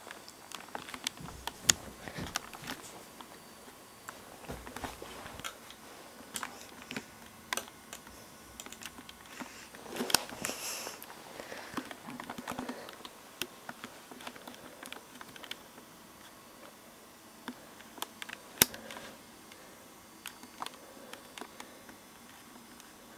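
Irregular small clicks and taps, spaced unevenly, with a short rustle about ten seconds in, over a faint steady hiss.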